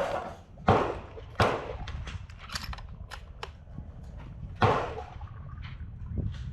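Gunshots at a rifle range: three sharp reports about 0.7 s apart in the first second and a half, another about four and a half seconds in, and fainter shots in between.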